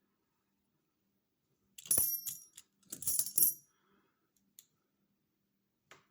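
Canadian silver half-dollar coins clinking against each other as they are sorted by hand. There are two clusters of bright metallic chinks, about two and three seconds in, and a faint single tick near the end.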